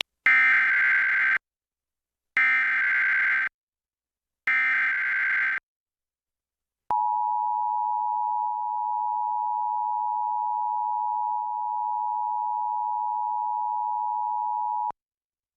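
Emergency Alert System broadcast tones announcing a tornado warning. First come three SAME digital header bursts, each a harsh electronic warble about a second long with short gaps between. Then the EAS two-tone attention signal sounds as a steady dual tone for about eight seconds and cuts off abruptly.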